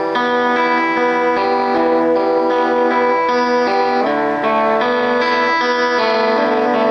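Band rehearsing a song, led by guitar playing held chords that change every half second to a second.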